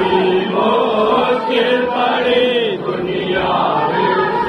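Voices chanting a continuous, melodic Urdu devotional refrain for Muharram.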